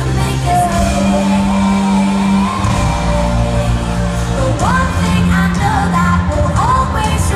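Live pop performance: a female lead singer sings into a microphone over a full band with a steady bass line, her voice sliding up into notes a few times. It is heard through the arena's PA from far back in the audience.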